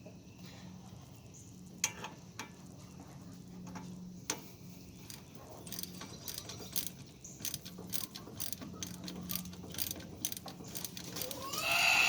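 Ratchet wrench clicking as the long brake caliper bolts on a 1999 Dodge Ram 1500 are worked out: a few separate clicks at first, then quick steady ratcheting through the second half. A louder sound that rises and falls in pitch cuts in at the very end.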